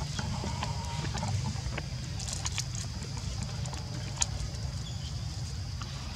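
Steady low rumble with a faint steady high tone, and scattered sharp crackles and clicks of dry leaves and crinkling plastic as a baby macaque handles them.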